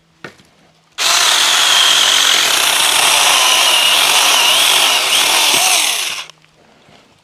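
Saker mini electric chainsaw (battery-powered) cutting through a downed tree: the motor and chain start abruptly about a second in, run loud for about five seconds with a high whine that wavers in pitch as the chain loads in the wood, then stop suddenly.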